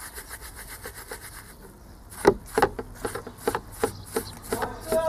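Soft brush scrubbing a power steering control module in warm soapy water, a quick series of rubbing brush strokes that grow louder from about two seconds in, washing corrosion off the module's pins.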